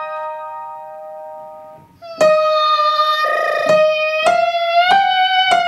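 A piano chord rings and fades to give the starting pitch. Then a young girl sings the word 'Maria' on a stepwise scale, rising to a high G and coming back down, with the piano striking each note under her voice.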